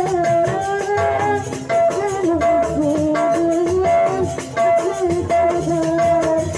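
Live rudat music: a woman sings a bending melody into a microphone over the band's drums and a steady percussion beat.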